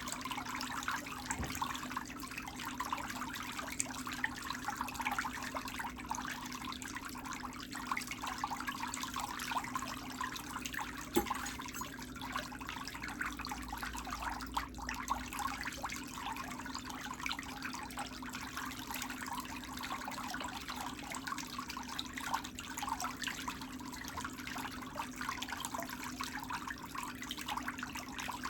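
A steady low hum under a dense, crackling, trickling hiss that runs without pause.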